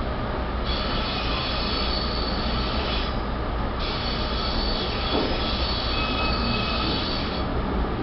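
Steady rumble of rolling stock as the passenger train and a freight train of hopper wagons run past each other on double track, with high-pitched steel wheel squeal that sets in twice, from about a second in to three seconds and again from about four to seven seconds.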